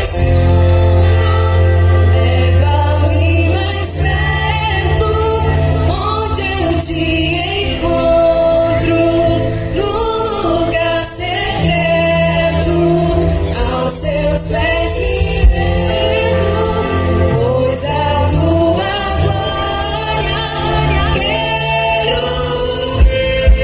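Gospel worship song: singing over long sustained bass notes.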